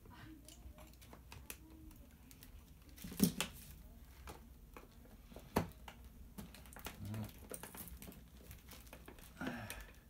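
Plastic housing of a laser printer toner cartridge being pried apart with a screwdriver: scattered small clicks and creaks of plastic, with two sharp snaps about three and five and a half seconds in, over the crinkle of a plastic bag underneath.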